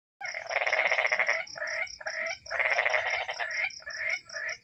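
Frogs croaking: repeated pulsed croaking calls in bouts of about half a second to a second, over a steady, rapid, high-pitched ticking call.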